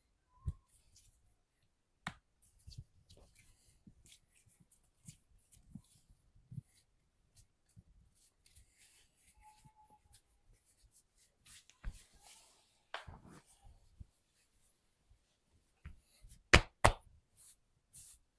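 Hands massaging: soft rubbing, tapping and clicking on skin and hair. Near the end come two sharp, loud snaps in quick succession.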